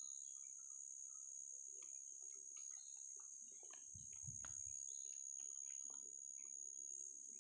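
Steady high-pitched insect drone, with faint scattered chirps and clicks and a short low rumble about four seconds in.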